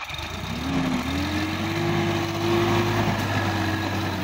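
Sonalika DI-50 RX tractor's diesel engine revving up under load as the tractor pulls out of deep mud and up a bank. The engine note rises about half a second in and then holds at a high, steady pitch.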